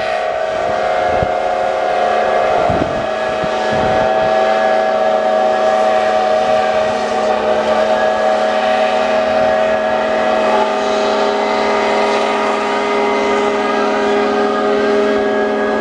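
Many steam engine whistles blowing at once, a loud, sustained chord of held tones at several pitches, with some whistles sliding in pitch as their valves are worked and another joining about two-thirds of the way in.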